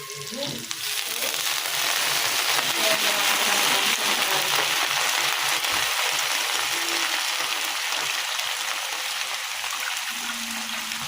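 Stir-fry of water spinach (tumis kangkung) sizzling hard in hot oil in a pan. The sizzle swells about a second in and slowly eases off.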